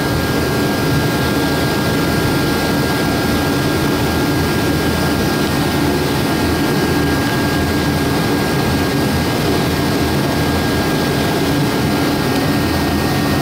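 Loud, steady running of a machine, an even rushing noise with a thin steady whine over it and no change in pitch.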